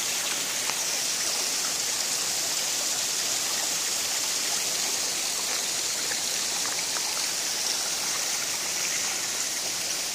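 Steady rush of hot-spring water running into and through stone-walled thermal pools.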